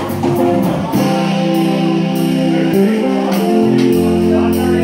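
Live band playing: electric guitars holding sustained notes over a steady drum-kit beat.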